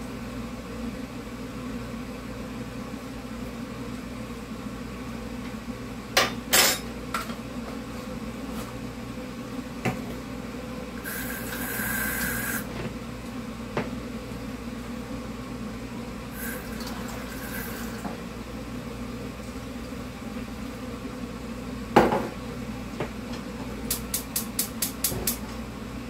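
Kitchen handling sounds: scattered knocks and clinks of a jar and spoon at a pot, with a brief hiss about halfway through. Near the end, a gas range's burner igniter clicks rapidly about eight times as the burner is lit.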